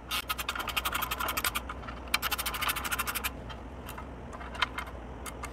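A hex Allen key and a 7/16 wrench snugging up quarter-20 socket head cap screws and lock nuts on a steel bracket. There are two runs of rapid clicking, each a second or so long, followed by quieter handling.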